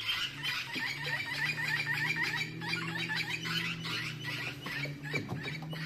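Rapid high chirping calls from a small animal, about five a second, over a steady low hum.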